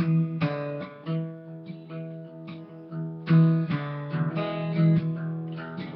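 Acoustic guitar played solo, a run of chords struck one after another and left to ring.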